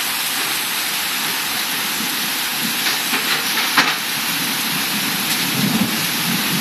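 Heavy rain pouring down in a steady hiss, with a few sharp taps near the middle, the loudest about four seconds in.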